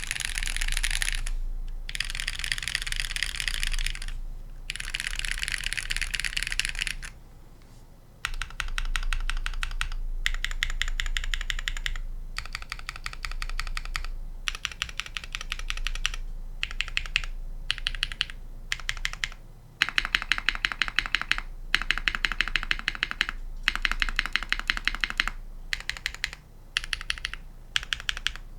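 Taeha Fjell mechanical keyboard with Holy Panda tactile switches on a brass plate being typed on fast, in bursts of rapid keystrokes a few seconds long with brief pauses between them.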